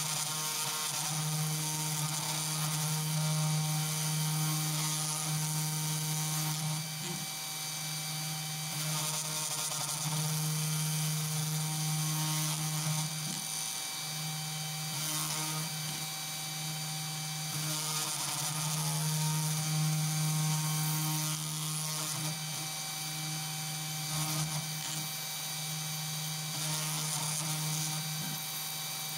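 CNC2418 desktop mill's spindle motor running steadily while a 0.2 mm V-shaped engraving bit cuts isolation tracks in a copper-clad circuit board, a small-motor whine and hum. The hum grows louder and softer in stretches of a few seconds as the machine works along the tracks.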